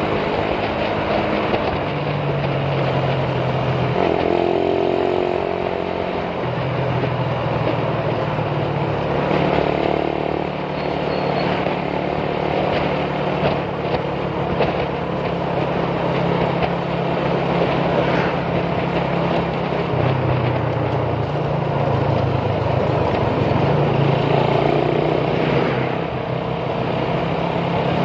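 Motorcycle engine heard from on board while riding, its note stepping up and down with the throttle, over wind and road noise on the microphone.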